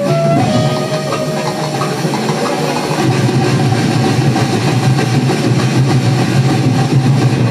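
Loud Dinagyang festival music played through a television speaker: a dense tribal drum-and-percussion ensemble that gets heavier from about three seconds in, with a melodic line in the first second.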